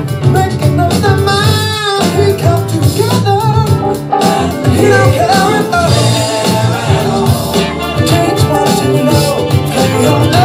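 Music from a DJ's turntable set: a funk record with singing over a steady beat.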